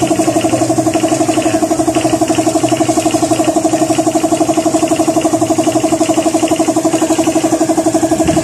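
A machine running steadily with a fast, even pulsing hum.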